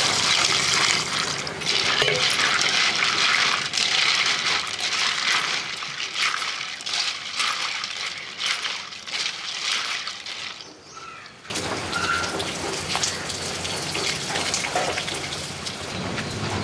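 Water poured into a brass pot of apple snails, splashing, while a hand swishes and rubs the snails in the water to wash them. There is a brief lull about eleven seconds in, then the splashing and sloshing go on.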